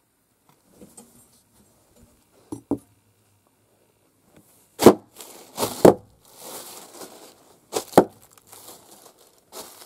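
Inflated plastic air-pillow packing being stomped on barefoot and popping: one small pop, then three loud pops in the second half, with plastic crinkling between them. Really loud.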